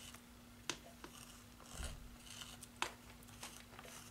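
Faint scratching of white chalk drawn in short strokes along the edge of a paper cutout on a painted canvas, with two sharp ticks.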